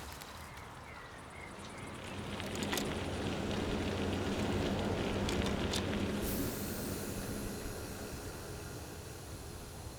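A vehicle passing by: a low rumbling hum that swells over a few seconds and then fades away, with a hiss coming in about six seconds in.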